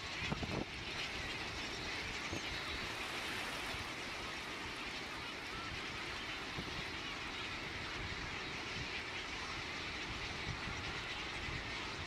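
Steady wash of noise from a huge feeding seabird flock of brown pelicans, sooty shearwaters and gulls on the water: massed splashing and calls blurring into one hiss, with wind rumbling on the microphone.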